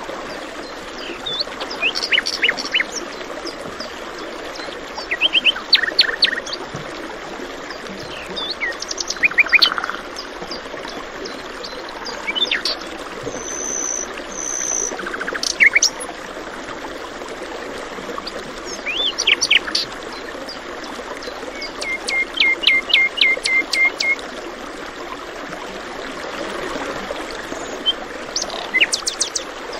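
Songbirds chirping and singing in short phrases and trills over the steady rush of flowing water, such as a stream.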